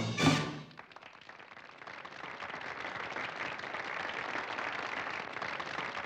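The number's band music ends on a last chord in the first half-second, then an audience applauds, the clapping building over about a second and then holding steady.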